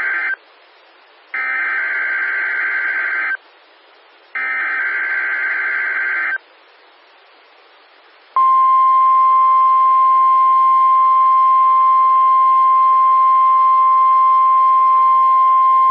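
NOAA Weather Radio test tone signals heard off-air through a radio receiver. First come the rapid warbling digital SAME header data bursts: the end of one, then two more of about two seconds each with short gaps between them. About eight seconds in, the steady, louder 1050 Hz warning alarm tone starts and holds, testing the alarm function of weather radio receivers.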